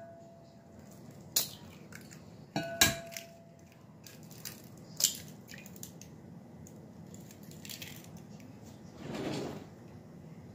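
Eggs cracked against the rim of a glass mixing bowl. Sharp taps come about a second and a half in and again near three seconds, the second with a short ring from the glass, then another click about five seconds in. A softer, longer rustle follows near the end.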